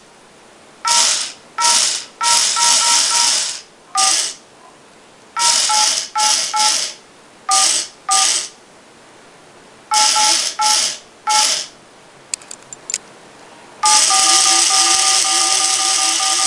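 Smartphone dialer keypad sending DTMF key tones: a run of short two-note beeps of uneven length and spacing, each with a hiss alongside, then a long held tone near the end, with a few faint clicks just before it. Each tone is a command that a DTMF decoder turns into bits for the robot's two-motor driver.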